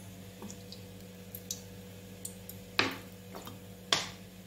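Small clicks from a metal kadai being handled as cooking oil is poured into it: a few faint ticks, then two sharp clicks about a second apart near the end.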